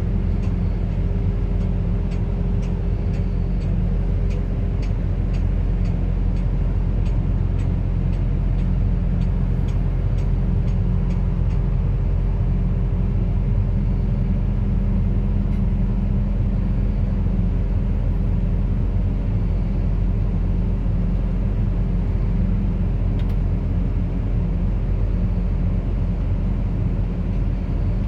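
Bobcat rotary telehandler's diesel engine running steadily with a low drone. A regular ticking, about two ticks a second, sounds over it for roughly the first half and then fades out.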